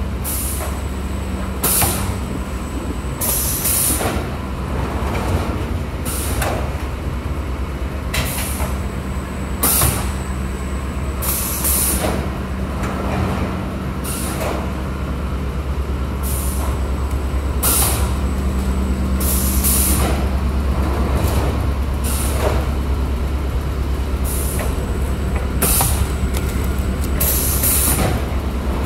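M&R Stryker automatic screen printing press running: a steady low machine hum with short, sharp hisses of released air from its pneumatic cylinders every second or two as it cycles.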